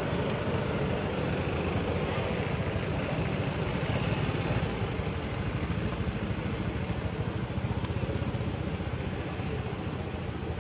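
Steady outdoor background noise: a low rumble with a continuous high-pitched buzz over it, easing slightly near the end.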